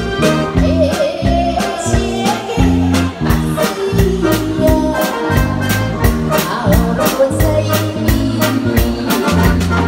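A woman singing into a handheld microphone over a live band, with a drum kit keeping a steady beat under bass and keyboard.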